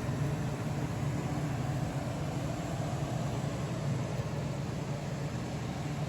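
De'Longhi Pinguino portable air conditioner running: a steady low hum under an even rush of air from its fan.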